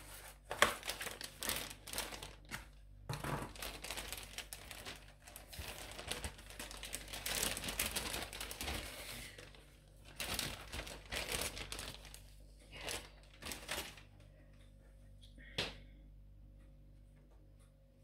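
Plastic zip bag being handled and pulled open, crinkling and crackling in irregular runs that stop about fourteen seconds in. One sharp click follows shortly after.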